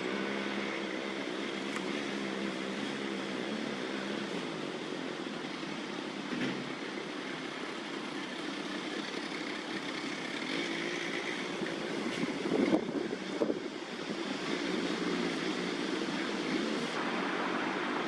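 Steady hum of city traffic, with a brief louder rumble and a couple of knocks about twelve to thirteen seconds in.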